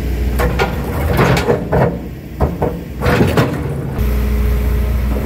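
Large excavator working a pile of broken concrete slabs: irregular knocks and scraping of the bucket and rubble over the running engine. About four seconds in, this gives way to a steady heavy-machine engine drone.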